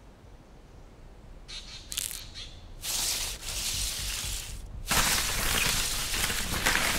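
Running footsteps and rustling through dry leaf litter and brush, crunching and crackling. It is quiet at first, comes in short rushes from about a second and a half in, and goes on continuously from about five seconds in.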